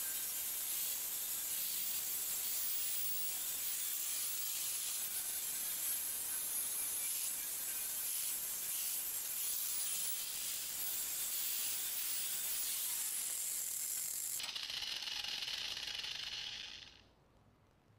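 Angle grinder sharpening the cutting edge of a steel lawnmower blade clamped in a vise: a steady, high hiss of metal against the grinding disc. About fourteen and a half seconds in the grinding stops abruptly and the grinder runs on by itself for a couple of seconds before cutting out.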